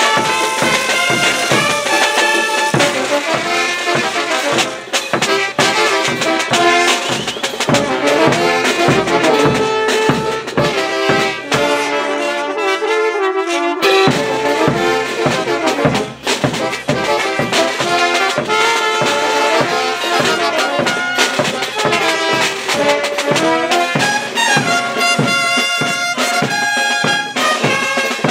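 Brass band playing a morenada, trumpets and trombones carrying the tune over a steady beat.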